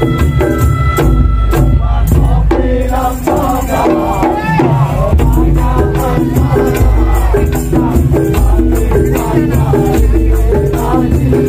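Madurese daul (tong-tong) ensemble playing: heavy drum beats in a steady repeating rhythm under a melodica melody, with dense percussion strokes.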